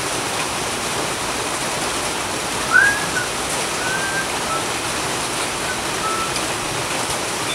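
A cat crying with a few short, high-pitched mews, the loudest about three seconds in and fainter ones after, over a steady background hiss.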